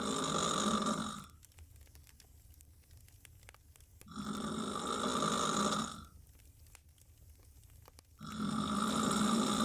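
A woman snoring loudly on her back with her mouth wide open: three snores about four seconds apart, each lasting under two seconds, with quiet gaps between them. The first is already under way at the start.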